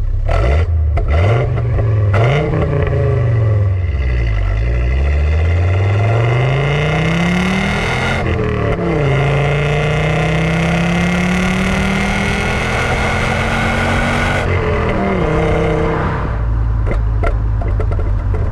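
Audi Cabriolet 2.3E's inline five-cylinder engine heard right at its twin tailpipes, pulling hard. The revs rise and fall in the first few seconds, then climb steadily through two gears with a gear change about halfway, and drop back to a lower steady run when the throttle is lifted about three-quarters through.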